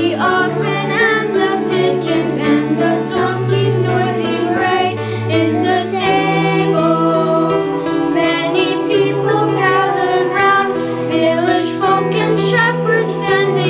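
A choir of children and adults singing together over long, held low accompaniment notes.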